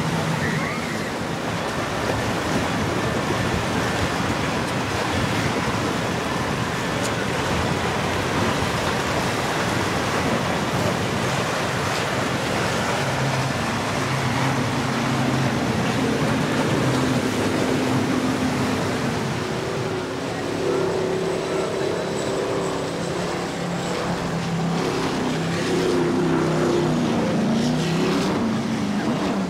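Powerboats running at speed through the waves, their engines droning over the steady rush of wake, surf and wind. In the second half the engine note grows stronger and wavers higher in pitch as another boat passes.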